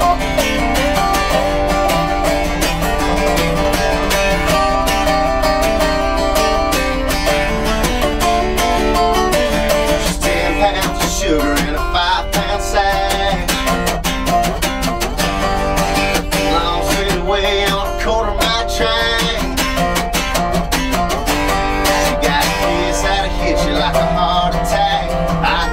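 Instrumental break of a country song: a steel-string acoustic guitar strumming steadily while a resonator guitar plays the lead melody.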